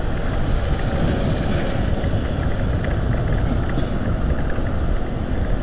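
Motorcycle riding along a city road: a steady low rumble of engine, tyres and passing traffic, with no separate events.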